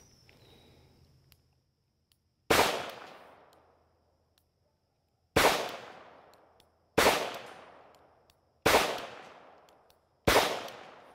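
Five shots from a Smith & Wesson Model 340 PD small-frame revolver firing .38 Special wadcutters, each a sharp crack with a fading echo. The first comes a few seconds in; after a pause of about three seconds, four more follow about a second and a half apart.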